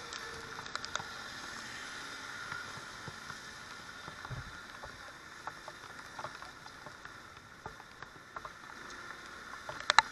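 Steady hiss of tyres and water spray on a rain-soaked road, heard from a moving motorcycle in the rain, with scattered sharp ticks and a quick cluster of them near the end.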